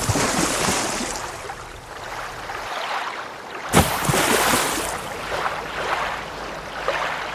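Water rushing and splashing, used as the sound effect for an animated logo, in two surges: the second comes suddenly nearly four seconds in and slowly fades.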